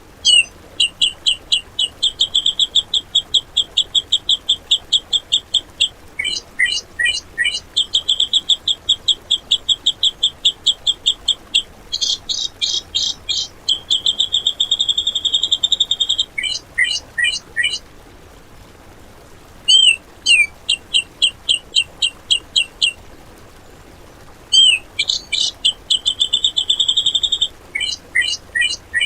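Cucak jenggot (grey-cheeked bulbul) calling in long bursts of rapid, sharp repeated notes. The rough 'shooting' call comes several times, with short pauses between bursts.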